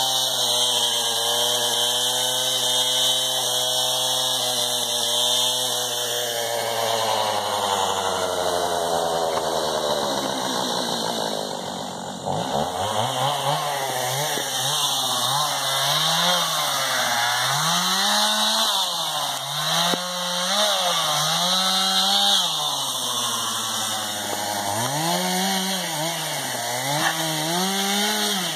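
Two-stroke chainsaw engine running fast, its pitch sinking slowly and dropping to idle about twelve seconds in, then revved up and down over and over, roughly once a second.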